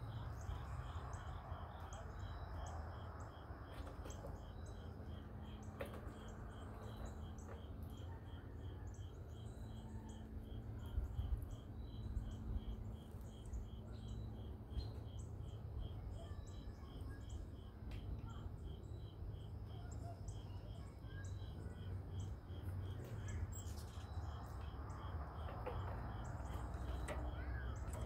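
Outdoor evening ambience: a steady train of evenly spaced high chirps, about two to three a second, over a constant low background rumble.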